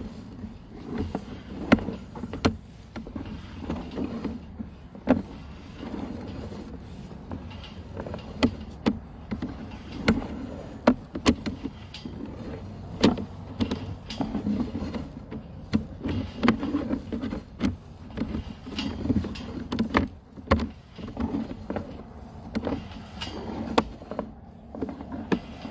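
Sewer inspection camera's push cable being pulled back out of the line: irregular clicks and knocks, about one or two a second, over a low steady rumble.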